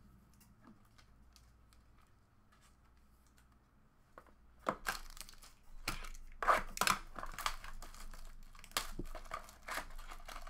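Near quiet for the first few seconds, then from about five seconds in, irregular crinkling and tearing of the plastic shrink wrap as a sealed trading-card box is unwrapped by hand.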